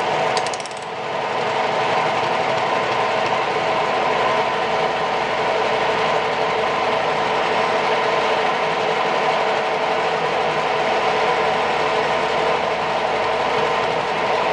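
VSN R-20 bench drill press running steadily under its electric motor, a constant mechanical hum with a brief dip just under a second in.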